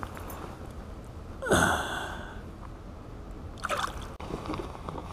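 Water splashing and sloshing as hands lower a rainbow trout into shallow water to release it: one louder splash about a second and a half in, then a smaller one near the end.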